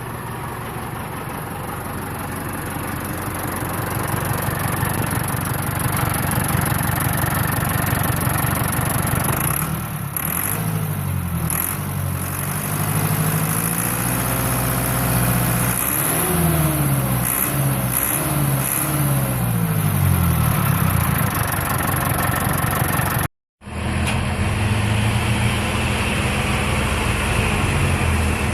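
Landini Blizzard 65 tractor's diesel engine working under load, getting louder over the first few seconds. Through the middle its pitch rises and falls several times as the revs change. The sound cuts out for a split second about three-quarters of the way through.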